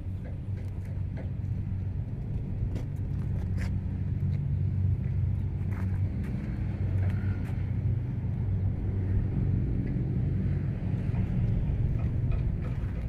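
Steady low rumble of an engine running, a little louder in the middle, with a few faint clicks.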